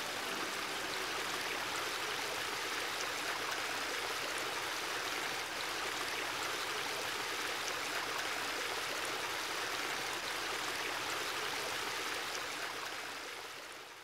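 Shallow stream running over rocks, a steady babbling rush, fading out near the end.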